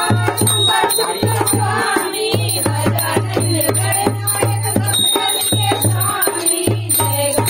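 Dholak, a two-headed barrel drum, played by hand in a quick, steady rhythm, its bass head giving repeated deep booms. It accompanies devotional aarti singing and a high metallic ringing.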